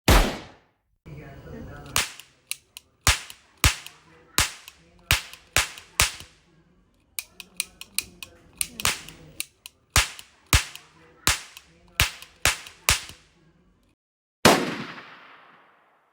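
A long string of gunshots, mostly about two a second, with a faster flurry of lighter shots in the middle. A final louder shot near the end has a long fading tail.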